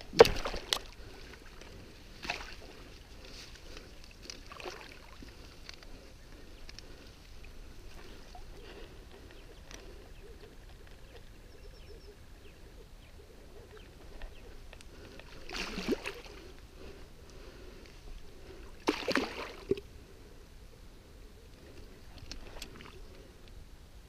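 Water splashing and sloshing as a sharptooth catfish thrashes in the shallows at the bank and is released: a sharp splash at the start, two smaller ones in the first few seconds, and two longer spells of splashing later on.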